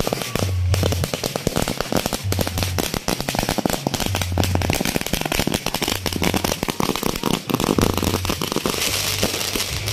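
A string of firecrackers going off on the ground, a rapid, unbroken rattle of sharp bangs.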